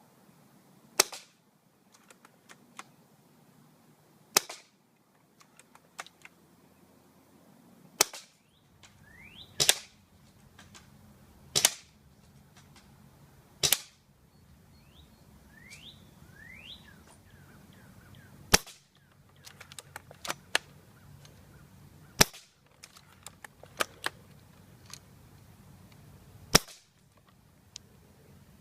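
L96 bolt-action airsoft sniper rifle firing about nine single sharp shots, spaced irregularly a few seconds apart, with fainter clicks between the shots.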